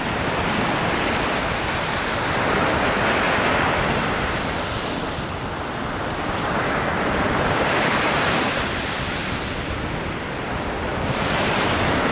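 Sea surf breaking and washing ashore: a steady rushing that swells and ebbs in slow surges, about every four to five seconds.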